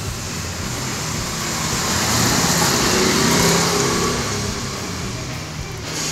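A road vehicle passing by: a steady rush of traffic noise that swells to a peak about halfway through, then fades.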